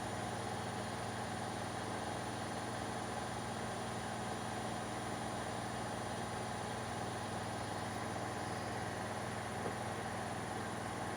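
Bosch washing machine running its spin cycle: a steady motor hum and drum whir at a constant speed.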